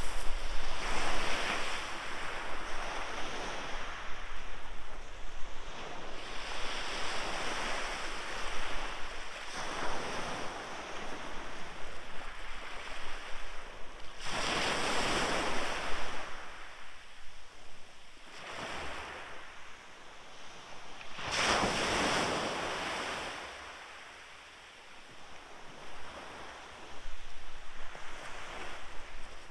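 Small sea waves breaking and washing up a shingle beach, each one swelling and fading over a few seconds, the loudest about halfway and two-thirds of the way through. Wind rumbles on the microphone underneath.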